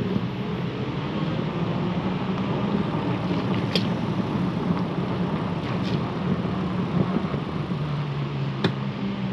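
Steady riding noise from an Aventon Adventure e-bike on the move, with a low hum that shifts slightly in pitch and a few sharp ticks.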